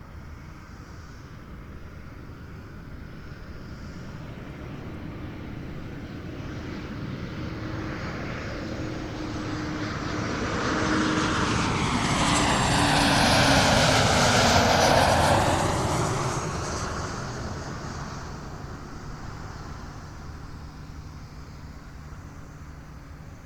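An airliner passing low overhead on landing approach: the engine noise swells, is loudest a little past the middle, then fades, while a tone in it slides down in pitch as the plane goes by.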